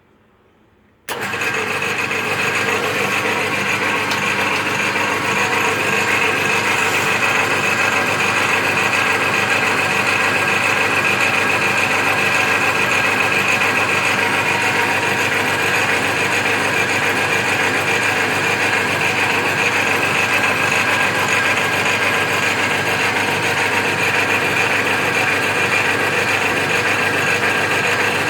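Lathe switched on about a second in, its motor and gearing running steadily at speed, with a constant whine of several steady tones.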